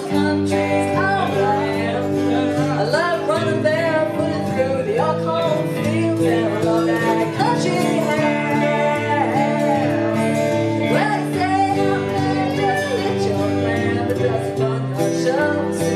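A woman singing a song into a microphone, accompanied by guitar, with vibrato on the held notes.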